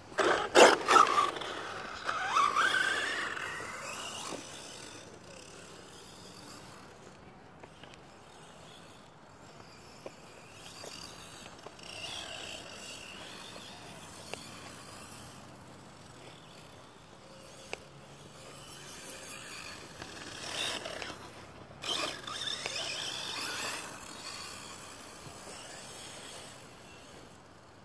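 Redcat Blackout XTE electric RC monster truck on a 3S battery pulling away, with a few knocks and a motor whine rising in pitch as it speeds off. It then runs fainter at a distance, and its whine grows louder again about 20 seconds in.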